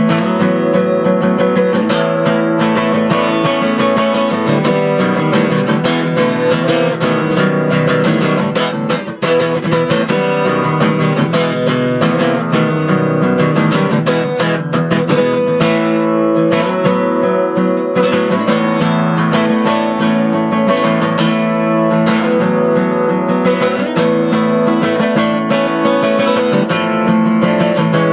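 Solo acoustic guitar playing an instrumental piece live, picked and strummed notes ringing together without a break.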